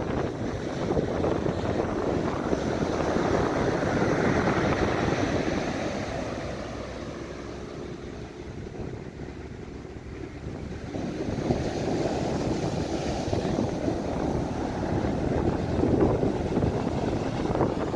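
Rough ocean surf breaking and washing up a sandy beach, swelling, easing in the middle and building again, with wind rumbling on the microphone.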